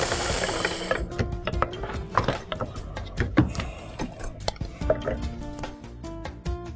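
Mixer grinder's motor spinning down after grinding fennel seed, its hiss fading out about a second in. Then come light metallic clinks and scrapes of a steel jar and utensils at a pressure cooker, over background music.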